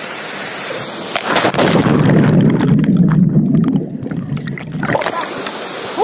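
Rushing waterfall and splashing water around a swimmer; for a few seconds in the middle the sound turns low and muffled as the microphone dips under the water, then the open rushing comes back near the end.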